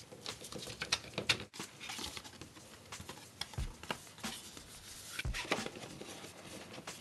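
Cardboard and paper packaging handled: light rustling, small taps and scrapes as box pieces are shifted, stacked and pressed down, with one soft thump a little past the middle.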